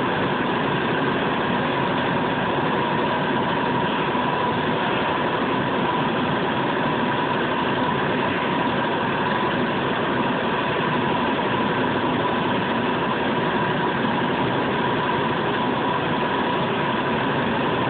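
A fired crucible furnace's burner and combustion-air blower running steadily: an even rushing noise with a thin steady tone over it.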